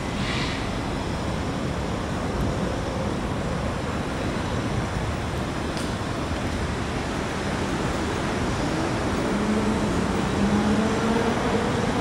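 Steady rumble of city traffic, with a low engine hum coming in about nine seconds in and rising slightly in pitch.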